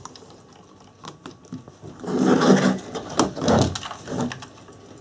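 Plastic Lego bricks clicking and knocking as a small Lego model tugboat is handled and turned over in the hands; its propeller motor is not yet running.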